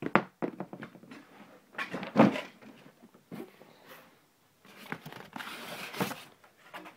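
Handling noises from an RC truck's cardboard box and packaging: scattered knocks, the loudest about two seconds in, and a rustling slide of cardboard around five to six seconds.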